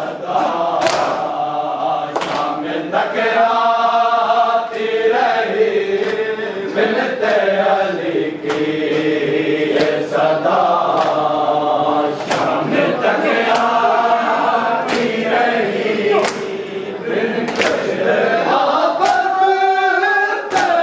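Men chanting a Shia mourning lament (noha) together, with matam: chest-beating strikes in a steady rhythm about every second and a half.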